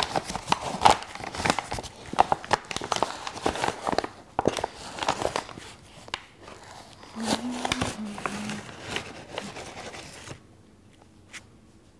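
Rustling, tapping and scraping as flour is scooped and measured out for the bowl: a busy run of small clicks and crinkles that dies down about ten seconds in.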